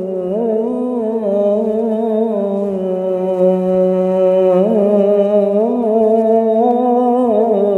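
A male qari's voice chanting Qur'an recitation, holding one long melodic vowel without a break. The pitch stays mostly level and wavers in short ornamental turns several times.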